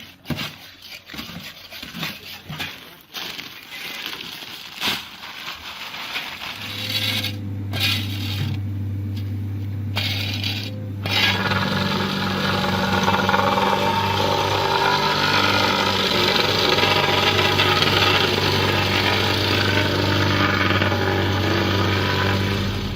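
Scattered metallic knocks and scrapes, then a machine's engine starts running with a steady low hum about seven seconds in. From about eleven seconds it is joined by louder, dense mechanical working noise.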